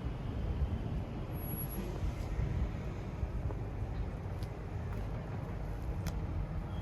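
Small excavator's diesel engine running steadily with a low rumble, with a couple of faint clicks late on.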